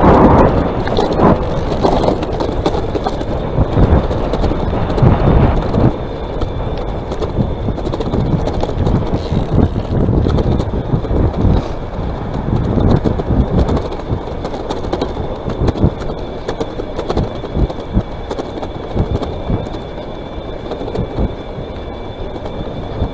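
Wind buffeting the microphone and tyre rumble while riding an electric bicycle, loudest for about the first second and then steady and gusty. A faint, steady high whine runs underneath.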